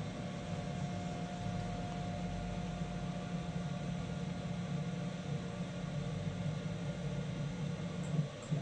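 Steady hum from a DIY CNC router's closed-loop servo stepper motors as the Z axis jogs the spindle down, with a faint steady tone that fades out about halfway through.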